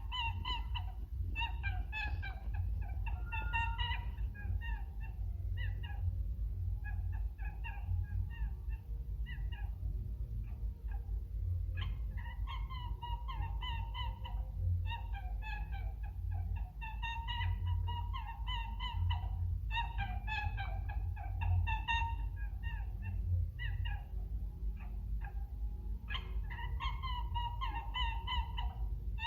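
Domestic fowl calling in bouts of short, repeated notes, with pauses between bouts, over a steady low rumble.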